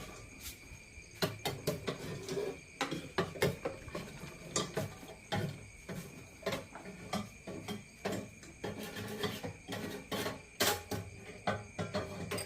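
12-volt popcorn machine running with a steady high whine, while irregular sharp pops and clicks come several times a second: kernels popping and rattling against the metal pan.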